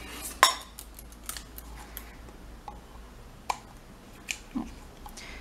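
Scissors snipping clear adhesive contact paper trimmed around a small glass jar: a few separate sharp snips, the loudest about half a second in.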